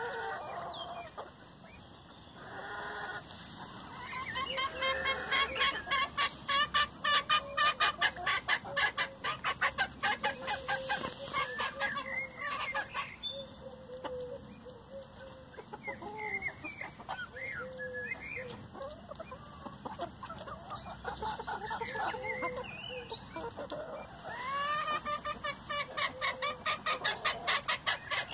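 Bantam chickens clucking and calling in short curved notes while feeding. A fast run of clicks comes and goes over the calls.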